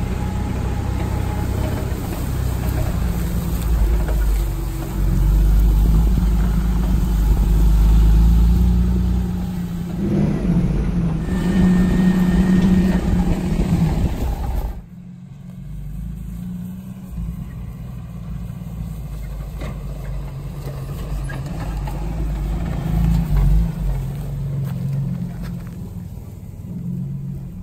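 A Nissan GQ Patrol 4WD driving over a rough grassy track, its engine running in a steady low rumble heard close from the bonnet. About halfway through, the sound cuts abruptly to a quieter, more distant engine as the Patrol drives on along the track.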